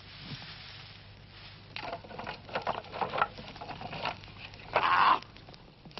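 Running footsteps and scuffling in a woodland clearing, a run of short irregular patters and thuds over film-soundtrack hiss, with one short loud burst of sound about five seconds in.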